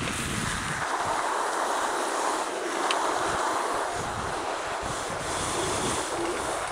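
Bicycle tyres rolling over packed snow, a steady grinding hiss, with wind buffeting the microphone.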